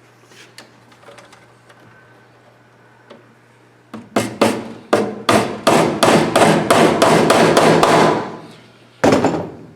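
A hammer striking a series of fast blows, about fifteen in four seconds, quickening as they go, with one more blow near the end.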